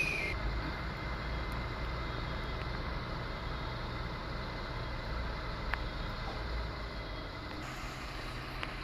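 Dump truck's diesel engine idling steadily, a low rumble.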